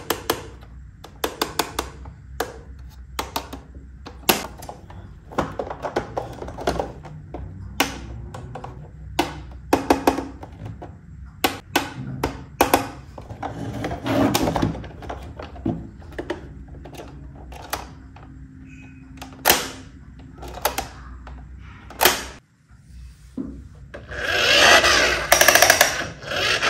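Hard plastic clicks, snaps and knocks in irregular bursts as a toy school bus is handled and its parts fitted together. Near the end, a louder rushing noise for about two seconds as the bus is pushed along the table.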